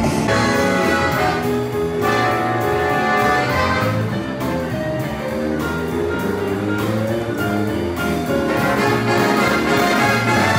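Big band music with brass to the fore: trumpets and trombones playing a jazz number over a steady accompaniment.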